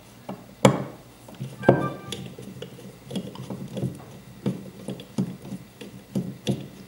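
Phillips screwdriver turning out a screw inside an industrial temperature transmitter housing: a run of small clicks and taps. A sharper knock comes near the start and another after about a second and a half, and the second one rings briefly with a metallic tone.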